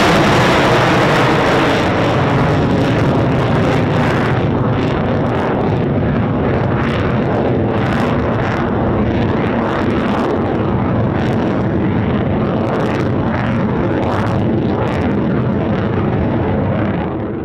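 F-35A's Pratt & Whitney F135 afterburning turbofan at full power in afterburner: a loud, steady jet roar as the fighter climbs away overhead. A ragged crackle runs through it from a few seconds in, while the highest hiss fades as the jet draws off.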